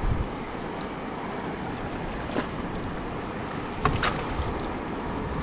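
Rain-swollen river water rushing steadily around an air mattress drifting with the current, with a few short sharp sounds, the loudest about four seconds in.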